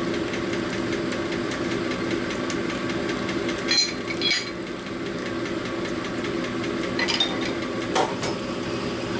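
Cylinder honing machine running steadily as it hones a Harley shovelhead cylinder bore under load, with a few sharp metallic clicks, two near the middle and two near the end.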